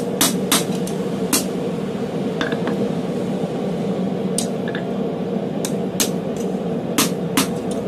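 Blacksmith's tongs and a hot D2 steel blank knocking against a steel tool block in a scatter of sharp metallic clicks and taps, spaced unevenly, about ten in all. A loud steady rushing noise runs underneath.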